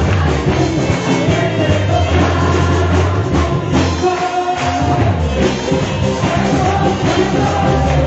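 Live church band playing an upbeat Spanish revival chorus through loudspeakers, with a strong steady bass and a singer's voice over it.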